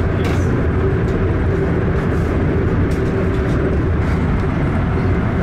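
Steady low rumble of a train running, heard from inside the passenger car, with a faint steady hum over it and a few faint ticks.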